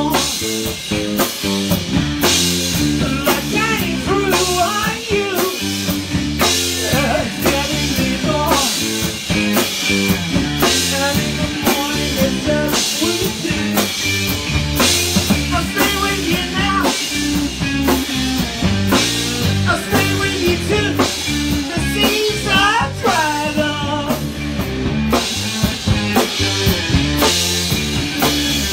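Live blues-rock band playing an instrumental section: drum kit beat, electric guitar and bass, with a lead line bending in pitch over the top, played on a harmonica cupped against the vocal microphone.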